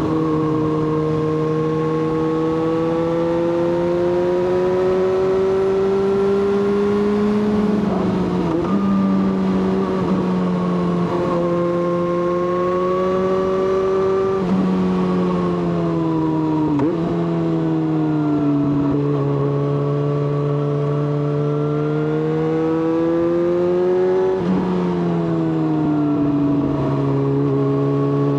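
Yamaha XJ6's 600 cc inline-four engine under way, its note rising and falling through the bends. The note breaks sharply about five times for gear changes.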